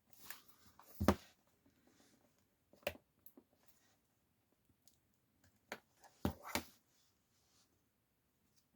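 Sharp plastic clicks and snaps from a Samsung tablet being pried open around its edge, its case clips letting go one by one. There are about five clicks, the loudest about a second in and a close pair a little past the middle.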